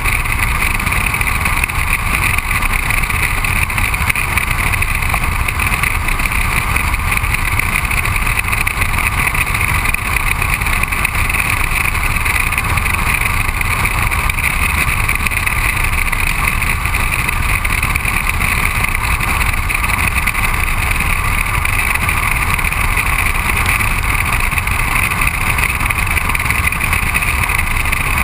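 Steady wind rush and road noise from a car driving at a constant speed, heard through a microphone mounted outside the body beside a front wheel, with tyre and engine rumble underneath. It holds an even level with no gear changes or revving.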